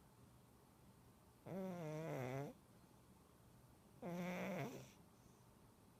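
Large domestic cat snoring in its sleep: two loud, pitched, wavering snores of about a second each, roughly two and a half seconds apart.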